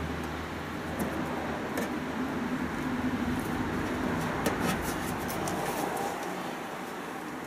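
A washing machine drive belt being worked by hand onto the drum pulley: scattered clicks and light rattles of the machine's parts, most of them about a second in and again around the middle, over a steady low hum.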